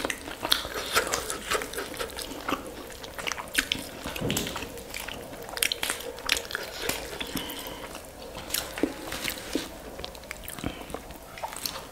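Hands tearing apart a whole roasted chicken: many small irregular ticks and tearing sounds of meat and skin pulling loose, then biting and chewing on a torn-off piece near the end.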